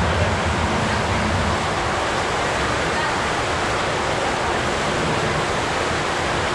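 Steady rushing of water flowing down the start of an enclosed tube water slide.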